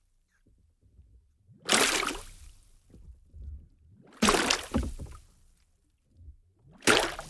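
Large bubbles surfacing in water, each a short gurgling burst. Three come at an even spacing, about two and a half seconds apart.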